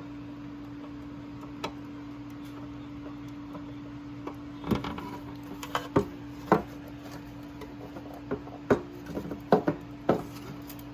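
A steady low hum, with a scattered run of light clicks and taps, like hard objects being handled or set down, starting about four seconds in.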